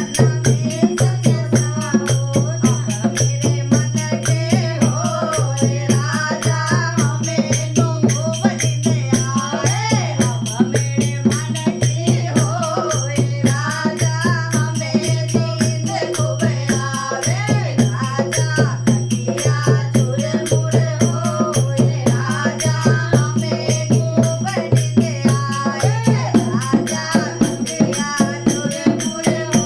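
A woman's voice singing a folk song over rhythmic backing music with a steady rattling beat.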